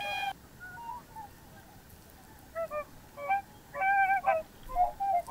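Whooper swans calling: a few faint honks about a second in, then a run of louder, short honking calls in quick succession through the second half.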